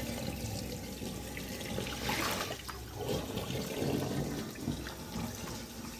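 Steady rush of running water, swelling a little louder about two seconds in.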